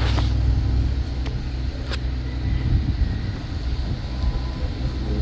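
Low, steady drone of a DHC-6 Twin Otter's twin PT6A turboprops and propellers passing overhead.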